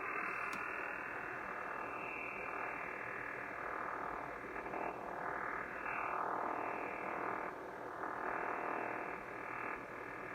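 HF transceiver receiving 40-metre band noise: steady hiss and static, squeezed into the narrow audio band of a sideband receiver, swelling and fading every second or two.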